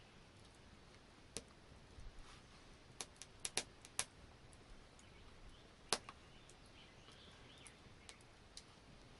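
Scattered small sharp clicks and taps, about a dozen at irregular intervals with the loudest near six seconds in, from hands working gut sinew through a hide pouch while tying a knot.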